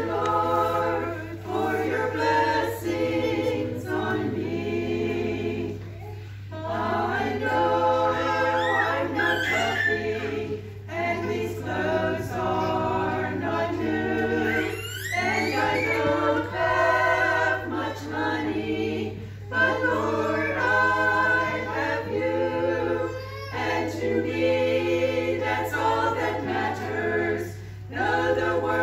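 A small choir of older women singing together without accompaniment, in phrases with brief pauses between them.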